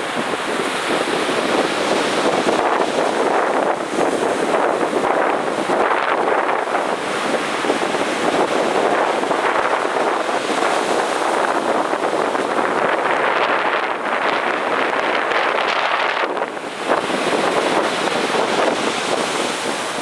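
Ocean surf breaking and washing on the beach in heavy swell, a steady rushing noise with a brief lull about three-quarters of the way in, with wind buffeting the microphone.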